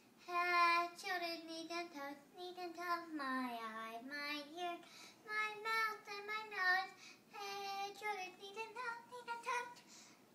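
A young girl singing unaccompanied, in phrases of held notes that bend up and down, with short breaks between them; one note slides down about three and a half seconds in.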